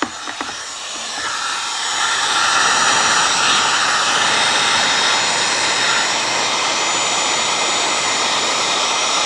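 Electric heat gun blowing steadily, its fan rush building over the first couple of seconds, as it shrinks heat-shrink tubing over wire splices.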